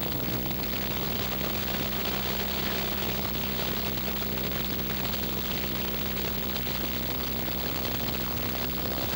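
Cabin noise of a Cessna light plane in flight: the piston engine and propeller give a steady low drone under an even rush of air, holding constant throughout.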